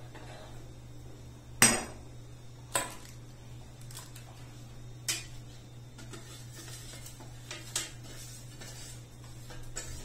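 Stainless steel spoon and pot clinking as milk and vermicelli are stirred, with about five sharp metal knocks, the loudest about two seconds in. Later, lighter clanks come from a steel divided plate being handled, over a low steady hum.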